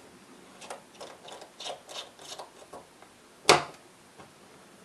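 Small screwdriver fitting tiny screws into a hard drive's circuit board: a run of light clicks and scrapes, then one sharp knock about three and a half seconds in.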